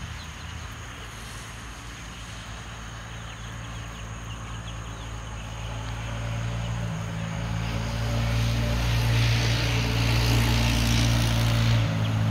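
A low, steady engine drone that grows louder over several seconds and then holds.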